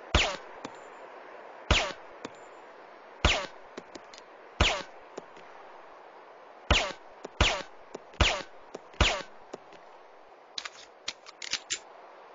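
Suppressed pistol shots: eight sharp reports at uneven intervals, each with a brief ring that falls in pitch, then a quick run of fainter metallic clicks near the end.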